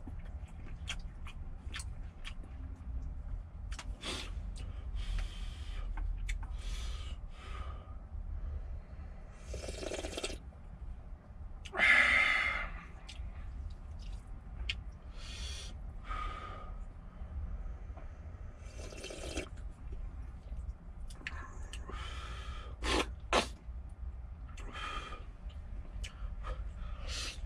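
Eating ramen from a stainless steel pot: chopsticks clicking against the pot as the noodles are stirred, and repeated short breathy bursts of slurping and blowing on the hot noodles, the loudest about twelve seconds in. A steady low hum runs underneath.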